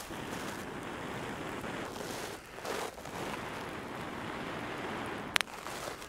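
Long, steady breaths blown into a bundle of dry grass around a smouldering chaga coal, to fan the ember into flame. There are short breaks between breaths about two and a half and three seconds in, and a sharp click near the end.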